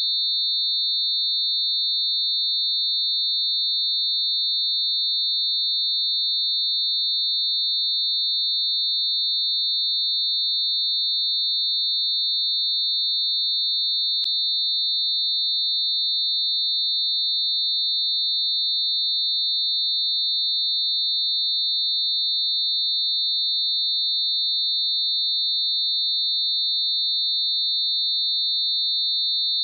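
Synthesized mix of several steady pure tones bunched closely around 4 kHz, giving one constant high-pitched electronic whine.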